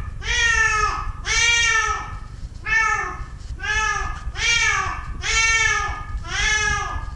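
Domestic cat trapped at the bottom of a deep light well, meowing over and over, about one call a second, each meow rising and then falling in pitch.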